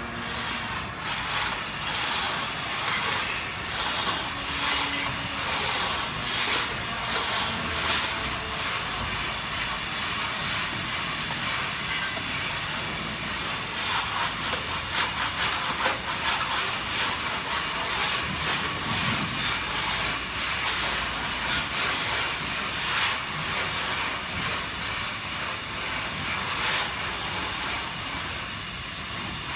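Gas brazing torch flame hissing steadily, with faint irregular crackles, as copper branch pipes of an air conditioner's refrigerant line are brazed.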